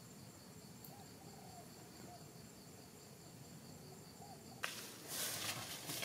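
Faint, steady high insect trilling with a few soft chirps. About four and a half seconds in, loud rustling and footsteps through grass and undergrowth start suddenly.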